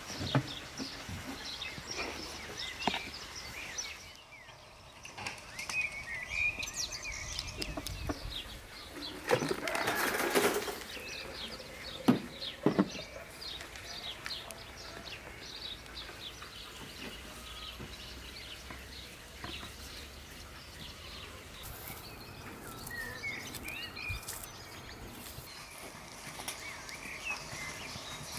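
Small birds chirping on and off throughout, with hands working soil in plastic planting pots: a scraping rustle about ten seconds in and two sharp knocks about two seconds later.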